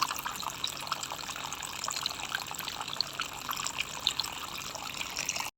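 Water from a small homemade plastic-bottle waterfall trickling and splashing steadily, then cutting off suddenly near the end.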